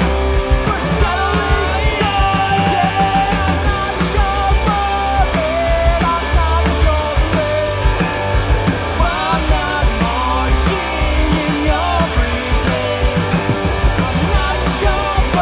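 Punk rock band playing live: electric guitar, bass guitar and drums, with a singing voice over them.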